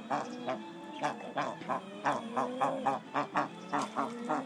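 Ducks calling: a steady run of short calls, three or four a second, over a fainter drawn-out lower note that rises and falls.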